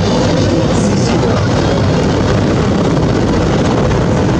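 Military combat helicopters flying, a loud, steady rotor and engine noise.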